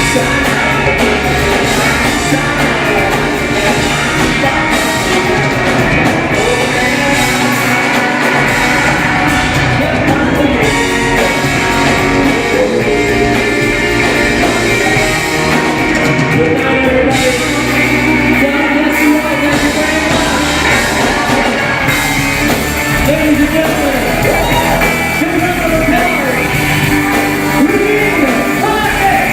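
Live rock band with electric guitar and drum kit playing a rock song, with a woman singing over it.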